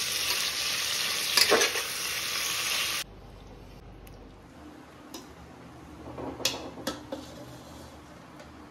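Food frying and sizzling in hot oil, stirred with a louder scrape about one and a half seconds in. The sizzle stops abruptly about three seconds in, leaving a quieter stretch with a few short utensil clinks.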